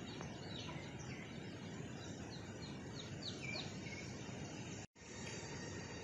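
Outdoor rural ambience with a bird giving a quick run of about six short, falling chirps, about one to three and a half seconds in. The sound cuts out for an instant just before the five-second mark.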